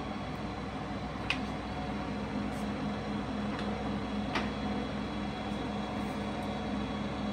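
Mecca Turn 460x1000 lathe running with a steady hum while the feed rate is being increased. A few sharp clicks come from the feed-gearbox levers being shifted, the clearest about a second in and again a little past the middle.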